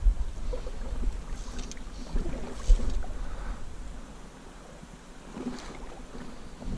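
Water sloshing and swishing around waders as an angler wades through a slow river, with a low rumble on the body-worn microphone; it eases off for a second or so around four seconds in.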